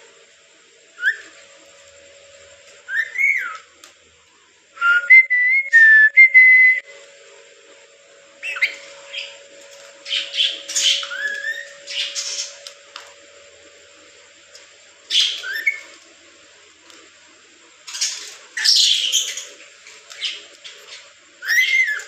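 Caged rainbow lorikeets calling: short rising and falling whistles and shrill screeches in irregular bursts, the loudest a quick run of whistled notes about five seconds in.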